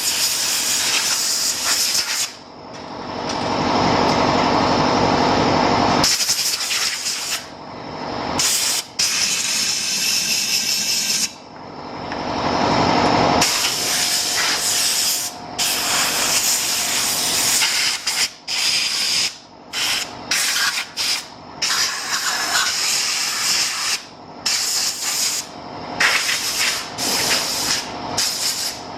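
Compressed-air blow gun blasting loudly as it blows a push mower clean. It comes in long blasts of several seconds at first, then many short on-off bursts in the second half.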